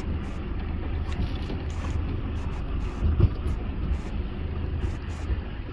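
Sport-fishing boat's engine running with a steady low rumble, with wind buffeting the microphone. A single short thump about three seconds in.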